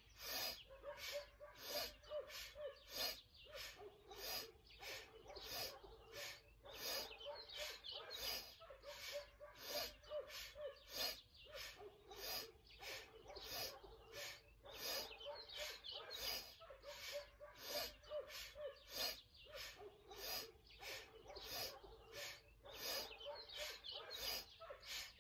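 Rapid rhythmic breathing, about two breaths a second, each inhale and exhale paced to a seated spinal twist from side to side.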